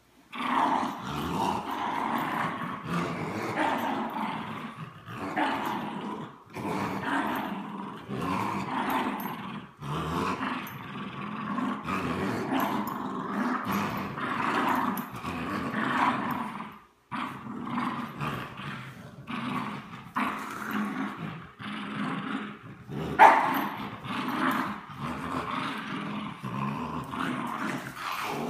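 Dogs growling steadily in play during a tug of war over a rope toy, a French bulldog and a Bichon Frise. The growling is broken by a few short pauses, and one sharp, louder sound comes about two-thirds of the way through.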